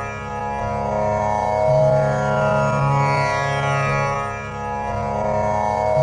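Tanpura tuned to C# sounding its continuous drone: the strings plucked in a slow repeating cycle, with buzzing overtones sweeping up and down through each note and the lowest string swelling about every four seconds.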